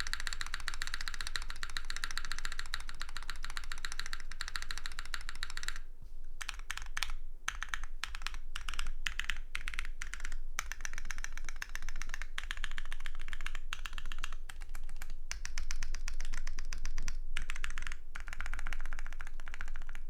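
Typing on a Protagonist WKL custom mechanical keyboard with lubed BSUN X switches, an aluminium plate on gaskets, no foam, and GMK Carbon R1 keycaps. It is fast, unbroken keystroking for about the first six seconds, then shorter bursts of typing with brief pauses.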